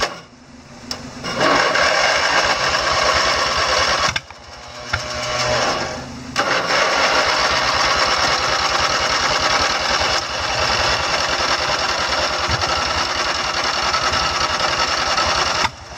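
Riding mower's engine running rough and struggling to stay lit while flooded with fuel: a carburetor needle valve that won't close keeps pumping gas in, so it is held at full throttle to burn it off. It picks up about a second in, nearly dies around four seconds, climbs back up and then runs steadily.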